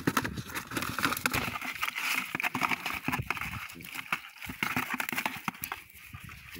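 Dense, rapid clicking and rustling as a wet fishing net full of cari armoured catfish is lifted and handled by hand, easing off near the end.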